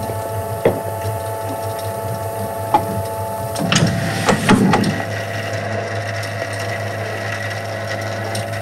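Motorised cylinder printing press running with a steady mechanical hum, its inking rollers turning. A few sharp clicks, and about halfway through a burst of clicking and paper rustle as a sheet is laid onto the cylinder for a linocut print.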